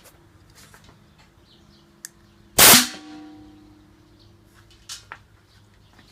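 Homemade pneumatic air cannon firing once: a 12-volt solenoid valve dumps an 11-gallon air tank through a half-inch pipe in a single sharp, loud blast about two and a half seconds in, followed by a short metallic ringing that fades away.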